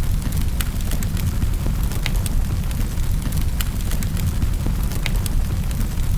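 Wood fire crackling in a fireplace: a steady low rumble of burning with frequent sharp pops and snaps at irregular intervals.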